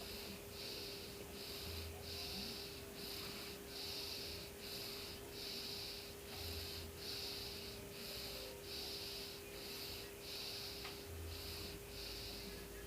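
Domestic cat purring close to the microphone, a rhythmic raspy purr that pulses with each breath in and out, about two pulses a second.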